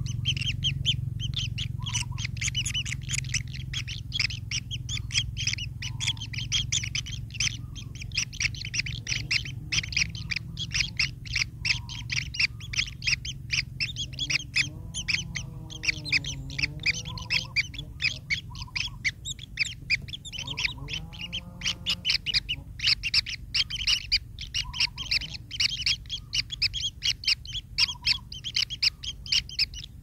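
Kingfisher nestlings in an earth burrow, chirping rapidly and without a break in high, dense calls. A soft lower note sounds about every two seconds, and a few lower wavering calls that rise and fall in pitch come in the middle and again near the end.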